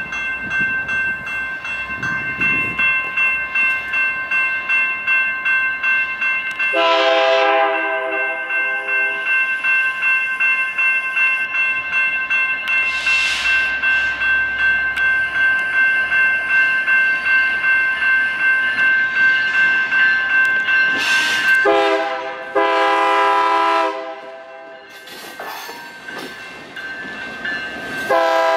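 Railroad grade-crossing warning bells ring in a rapid, steady ding over the approach of a Union Pacific EMD SD59MX freight locomotive, UP 9926. Its air horn sounds a long blast about a quarter of the way in, two more blasts, a short then a longer one, about two-thirds through, and another long blast near the end, warning the crossing. The bell ringing quiets after the second horn sounding.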